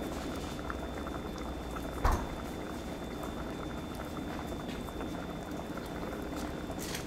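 Pumpkin pieces boiling in water in a stainless steel saucepan: steady bubbling and popping, with one sharp knock about two seconds in.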